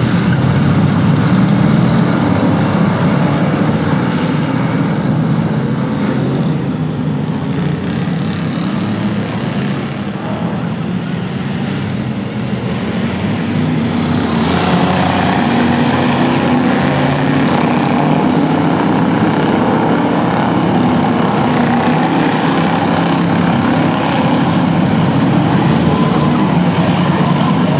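Many racing car engines running hard together as a pack of stock cars and school buses laps the track: a dense, continuous engine din. It turns brighter and harsher about fourteen seconds in.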